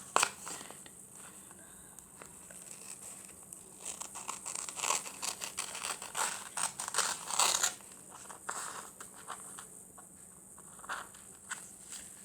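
Paper being handled, with irregular rustling and crinkling that is busiest in the middle, over a steady faint high-pitched hum.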